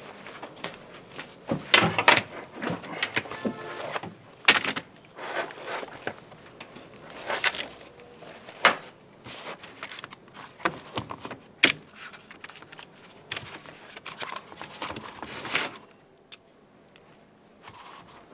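Papers rustling and things being handled at a desk: a bag set down and sheets and files shuffled, in irregular rustles and light knocks. It dies down about 16 seconds in.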